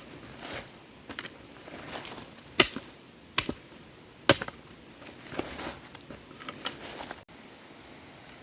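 Three sharp knocks in the middle, among rustling and handling noise.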